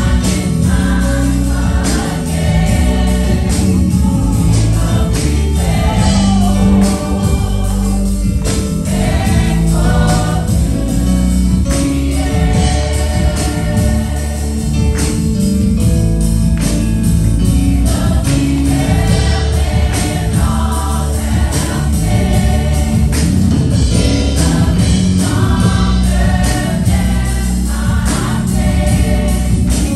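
Women's and girls' choir singing a gospel song, accompanied by electric keyboard and a drum kit with a strong steady bass.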